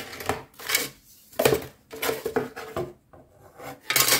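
Plastic kit parts and paper instructions being moved around inside a cardboard box. A series of rustles and light plastic clatters comes in uneven bursts, with a louder one near the end.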